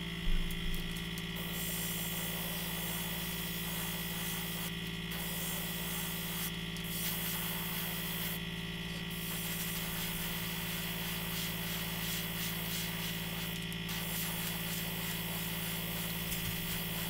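Airbrush spraying paint, driven by a small airbrush compressor: the compressor runs with a steady hum and whine, and the hiss of air through the airbrush drops out briefly about four times.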